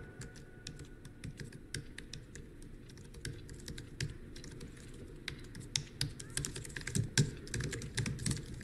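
Typing on a laptop keyboard: a quick, irregular run of key clicks.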